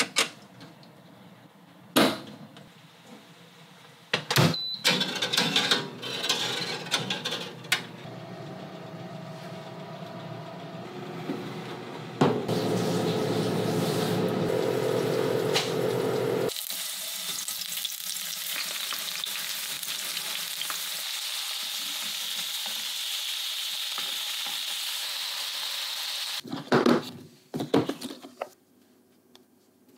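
A whole chicken roasting in a countertop rotisserie oven. The oven runs with a steady hum, then for about ten seconds there is a steady sizzling hiss. Sharp clicks and clatter come at the start as the chicken is loaded, and a few knocks of a plastic container near the end.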